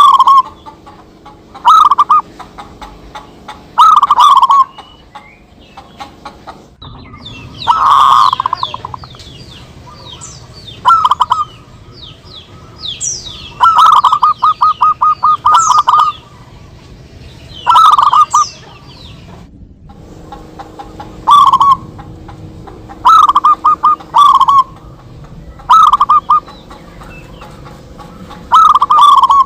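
Zebra doves (perkutut) cooing in repeated short bursts of rapid staccato notes, the phrases coming every second or two as birds answer each other. Through the middle stretch, high quick chirps of other small birds sound over them.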